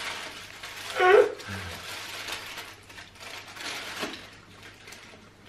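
Paper burger wrappers rustling and crinkling as they are handled and unwrapped. About a second in there is a short vocal sound that falls in pitch, the loudest moment.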